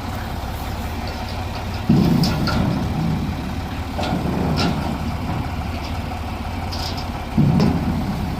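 Heavy equipment engine running steadily, with two sudden louder surges of low rumble, one about two seconds in and one near the end, and a few faint clicks.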